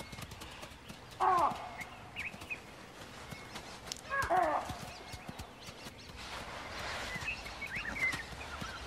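Two short wild animal calls, each falling in pitch, about three seconds apart, over scattered light clicks and taps. Small bird chirps come in near the end.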